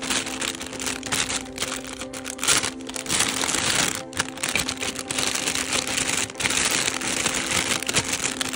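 Background music with steady held tones, over a dense rustling and crinkling of plastic packaging and toy parts being handled, with a few brief pauses in the handling.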